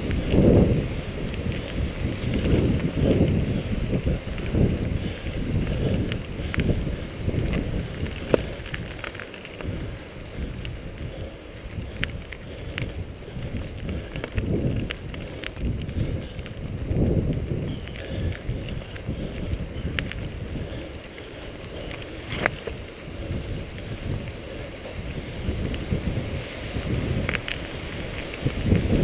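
Wind buffeting the microphone of a mountain bike's camera at speed, with the tyres rolling over a dirt trail in a rough, gusting rumble. Several sharp clacks come as the bike jolts over bumps.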